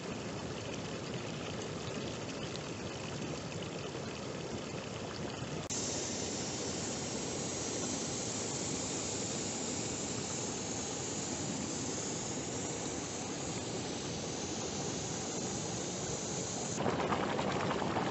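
Geothermal hot springs and steam vents bubbling and hissing: hot water and grey mud churning in small pools, a steady rushing noise. The sound shifts abruptly about six seconds in and again near the end.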